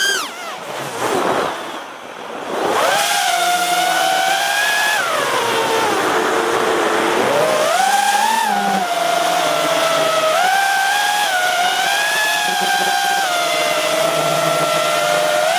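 DC5 FPV freestyle quadcopter's motors and propellers whining, the pitch rising and falling with the throttle. The whine drops sharply about half a second in, as the throttle is cut, and climbs back about three seconds in. It then holds high with smaller swoops, with one slower dip and rise a few seconds later.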